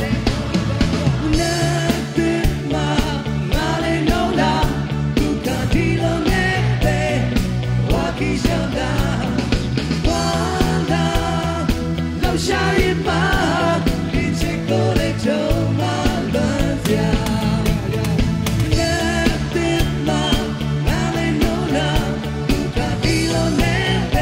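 Live rock band playing on stage: a singer's voice into a microphone over drums and electric guitar.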